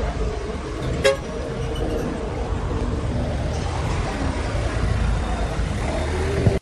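Forklift engine running steadily, with a sharp short clank about a second in and another brief knock near the end.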